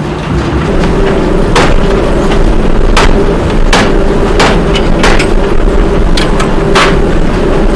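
Hanging roller concrete pipe-making machine running: a loud steady rumble with a hum, and sharp knocks roughly every second.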